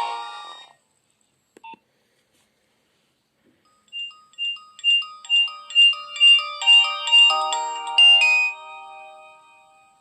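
Nokia 2600 mobile phone playing its preloaded ringtones through its speaker: one tune dies away, a brief click comes about a second and a half in, and after a pause a new ringtone starts about four seconds in, a melody of short electronic notes with several sounding together. It grows busier and ends on a held chord that fades out.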